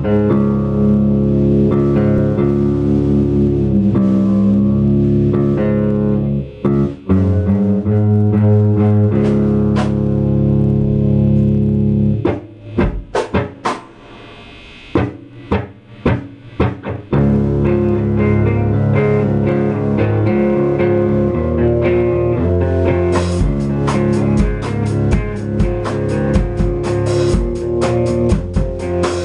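Distorted electric guitar through a stack amplifier and a Yamaha drum kit playing a rock song. Held chords give way about halfway through to a quieter break of separate chord stabs and drum hits, then the full band comes back in, with quick, even cymbal beats near the end.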